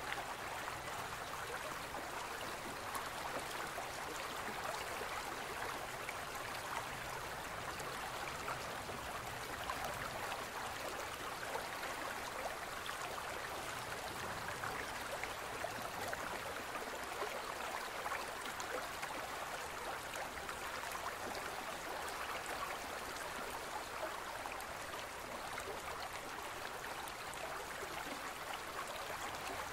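A small stream flowing steadily, water trickling and splashing over rocks in an even, unbroken rush.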